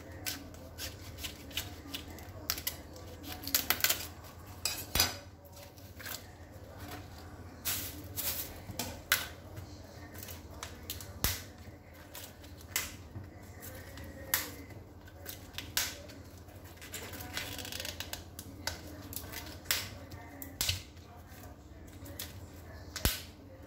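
Crisp cracks and crunches at irregular intervals as the outer leaves of a whole cauliflower are cut into with a kitchen knife and snapped off its stalk by hand.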